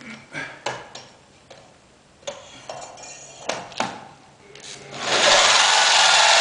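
A few scattered clicks and knocks, then about five seconds in a corded electric drill starts cutting a 29 mm hole into the Yamaha XVS1300's stock exhaust: a loud, steady grinding of the bit in the metal.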